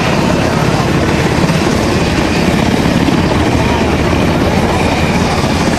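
Military helicopter flying low overhead, its main rotor beating a rapid, steady chop over the engine noise.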